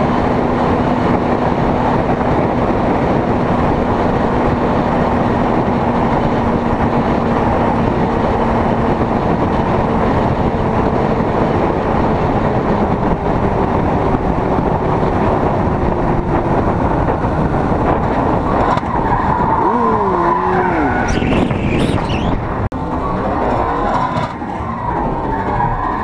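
Motorcycle at freeway speed: steady wind and road roar over the engine's drone, which slowly drops in pitch as the bike eases off. About twenty seconds in, a wavering squeal like tyres skidding cuts in briefly.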